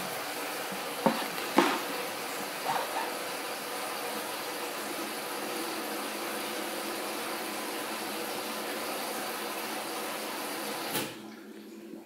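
Haier HW80-B14979 front-loading washing machine taking in water early in a wash cycle: a steady rush of water with a few light knocks in the first three seconds, cutting off suddenly about eleven seconds in.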